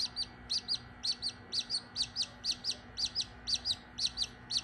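Australorp chick peeping rapidly and steadily, about four short, high, falling peeps a second.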